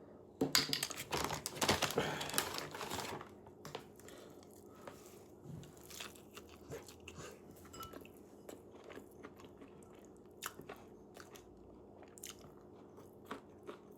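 Biting into and chewing crunchy breaded chicken strips: a loud crunching bite for about the first three seconds, then quieter chewing with scattered crackles.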